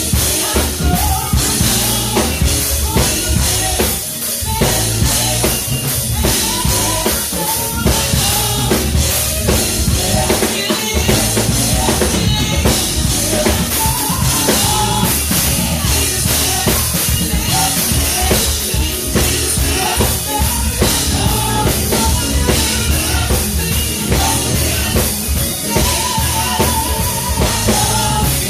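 Live gospel band music led by a drum kit, with steady bass-drum and snare strokes under pitched instrumental lines.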